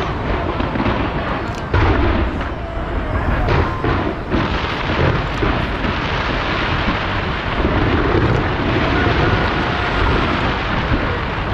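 Large fireworks display: a dense, continuous barrage of booms and crackles, with sharp loud bangs about two and four seconds in.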